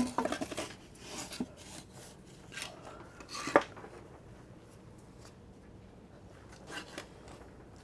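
Wooden shims being driven in under a boat's keel: a sharp knock at the start, some scraping and rubbing, and a louder single knock about three and a half seconds in, then only faint ticks.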